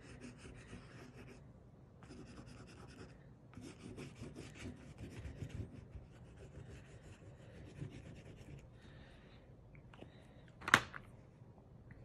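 Water-soluble crayon scratching across paper in runs of quick back-and-forth strokes, faint, with short pauses between runs. A single sharp click about eleven seconds in.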